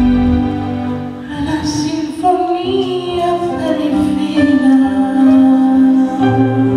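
A woman singing a worship song into a microphone over held instrumental chords; her sung line comes in about a second in.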